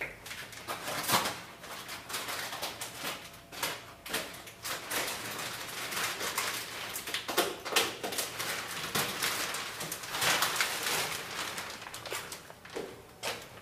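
Irregular rustling and crackling, the sound of something being handled close by, with a few sharper crackles scattered through.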